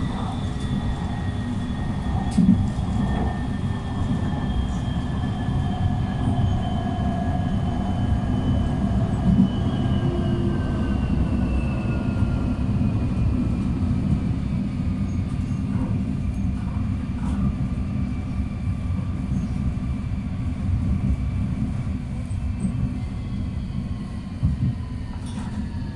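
Tram running, heard from inside the passenger cabin: a steady low rumble, with two high whines that slowly fall in pitch.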